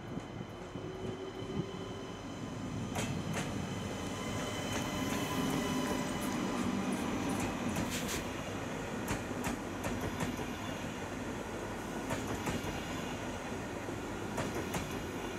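SNCF TGV Duplex double-deck high-speed train pulling out of the station at low speed: a steady rumble and hum as the power car and coaches pass, with sharp clicks from the wheels on the track at irregular intervals.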